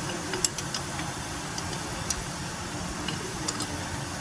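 Hand ratchet clicking in short, irregular runs of light clicks while the front wheel hub's mounting bolts are being loosened, over a steady low background hum.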